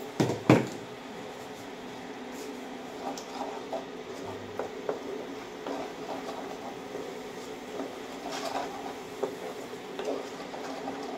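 Wooden spatula stirring and scraping thick masala paste in a nonstick kadai. There are two sharp knocks against the pan near the start, then light scattered taps and scrapes over a steady low hum.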